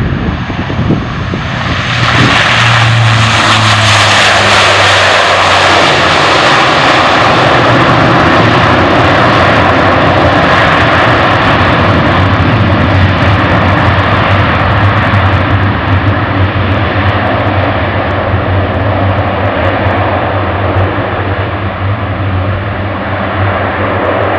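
Four turboprop engines of a Lockheed C-130J Hercules on its landing roll. About two seconds in, the sound jumps to a loud, steady roar as the propellers go to reverse pitch to brake the aircraft, with a low propeller drone underneath. The roar eases slowly as the aircraft slows and rolls away.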